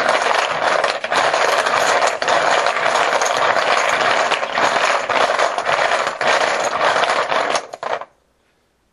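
Poker chips clattering as they are shaken and mixed in a bucket before one is drawn: a dense, continuous rattle of many small clicks that stops abruptly near the end.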